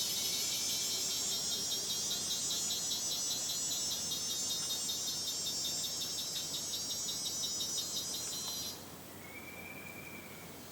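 Rainforest insect chorus: a loud, high-pitched buzz that pulses rapidly and evenly, cutting off suddenly near the end. A single short whistled note follows.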